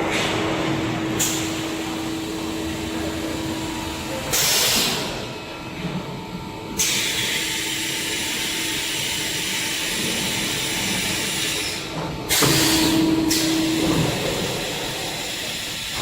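Machinery of a running PVC pipe extrusion line: a steady hum under a loud mechanical din, with bursts of hissing, a short one about four seconds in, a longer one of about five seconds starting near seven seconds, and another short one near twelve and a half seconds.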